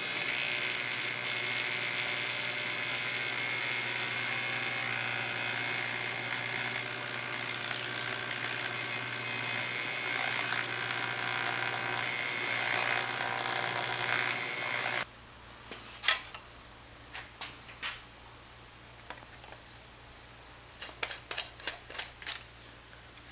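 TIG welding arc buzzing steadily while a fuel-pump bracket is welded. It cuts off about fifteen seconds in, and is followed by faint clicks and taps of metal parts being handled and clamped.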